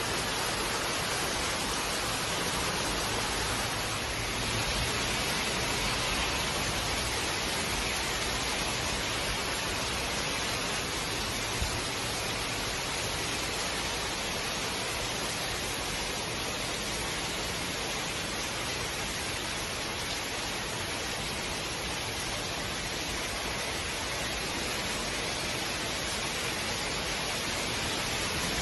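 Heavy rain pouring down in a steady downpour: a constant, even hiss with no let-up.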